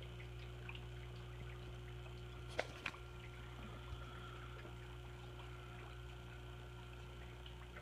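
Aquarium equipment running: a low steady electrical hum with faint trickling water from the tank's filter. Two sharp clicks sound close together about two and a half seconds in.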